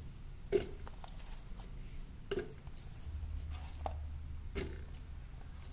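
Cut strawberry pieces dropped into an empty plastic mixer-grinder jar: a few soft knocks spaced a second or so apart.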